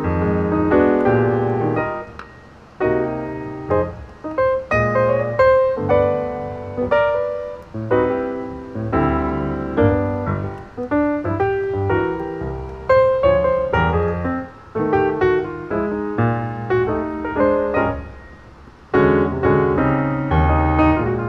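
Background piano music, a sequence of struck notes and chords with short pauses about two seconds in and near the end.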